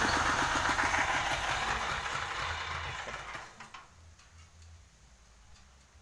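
A sawmill's small petrol engine and circular saw blade running, the sound dying away over about three seconds and leaving a faint low hum with a few ticks.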